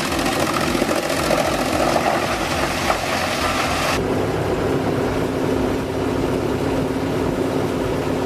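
Wood chipper's engine running steadily. It changes abruptly about four seconds in to a smoother, lower drone with a held hum.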